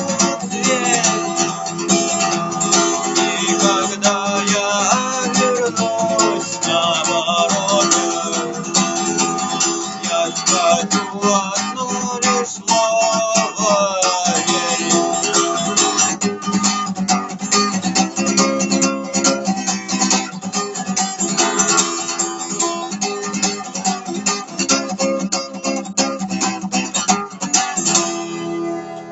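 Guitar strumming chords in a steady rhythm as an instrumental outro, fading out near the end.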